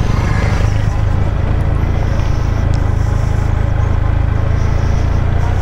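A Yamaha MT-15's single-cylinder engine running steadily at low road speed, heard from the rider's seat as a loud, steady low hum. An oncoming motorcycle passes close by near the start.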